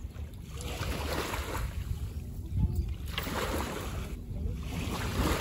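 Wind buffeting the microphone over the gentle wash of shallow sea water at the shore, rising and falling in uneven surges.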